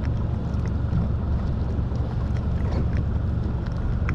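Steady low rumble of wind on the microphone over water lapping at a small boat, with a few faint clicks.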